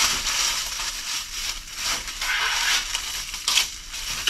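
Clear plastic wrap crinkling and rustling as a plastic-wrapped bundle of truck muffler guards is handled and pulled open, with a sharper crackle about three and a half seconds in.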